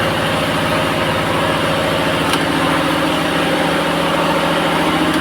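Heavy machinery running steadily: an even, fast low throb with a steady hum over it.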